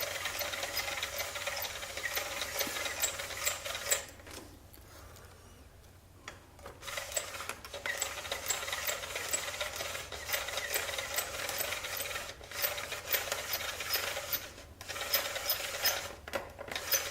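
35mm bulk film loader being hand-cranked to wind film into a cassette: a run of small mechanical clicks and rubbing, pausing for about three seconds some four seconds in, then carrying on.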